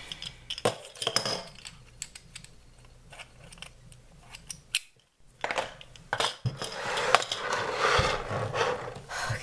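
Snatoms magnetic plastic atom balls clicking together and tapping on a wooden table. After a brief break about five seconds in, the clear plastic clamshell tray of balls crackles and clicks as it is handled.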